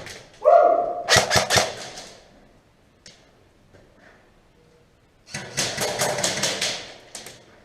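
Airsoft gun firing in rapid bursts: a short burst about a second in, then a longer burst of about two seconds past the halfway point, with a quiet pause between.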